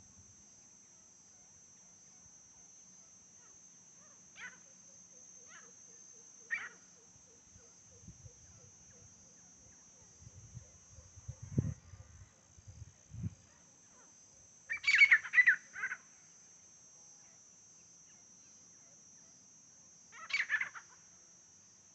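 Grey francolin calling: a loud burst of several harsh notes about two-thirds of the way in, and another shorter burst near the end, with a few faint single notes earlier. Crickets chirr steadily behind, and a few low knocks come in the middle.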